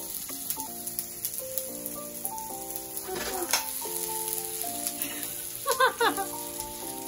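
Sautéed vegetables sizzling in oil in a frying pan while upma is being made, under background music playing a melody of held notes. A brief high child's voice is the loudest moment about six seconds in.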